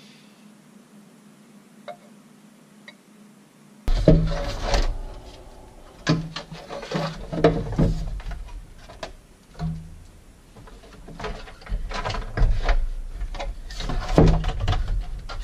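Parts being handled and fitted in a stand-up jet ski's engine compartment. Irregular knocks, clunks and rubbing of metal and silicone hose against the hull start suddenly about four seconds in, after a faint hum.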